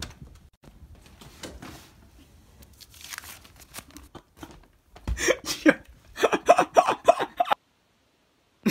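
McDonald's paper delivery bag crinkling and rustling as it is picked up and handled. Short vocal sounds from a man come through the rustling around the middle. Everything stops abruptly near the end.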